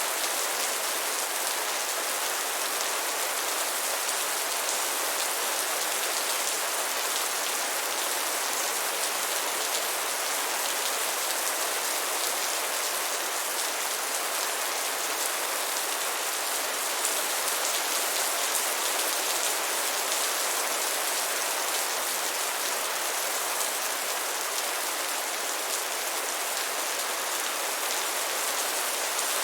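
Steady rain falling: a dense, even hiss of many small drop impacts that holds level throughout, with no thunder.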